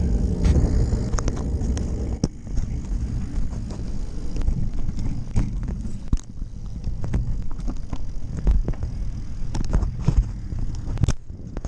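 Wind rumble on the microphone and rolling noise from a moving electric bike, with irregular sharp clicks and rattles from the bike going over bumps; one louder knock near the end.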